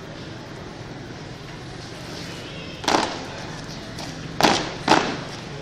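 A squad of school scouts at marching drill on brick paving: a loud sharp sound about three seconds in, then two sharp unison foot stamps about half a second apart, over a steady hum of background noise.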